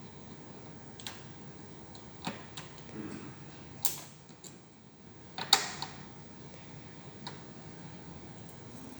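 Scattered small clicks and knocks of a screwdriver and screws against the plastic casing of an HP 200 G3 All-in-One PC as its screws are fitted. The loudest knock comes about five and a half seconds in.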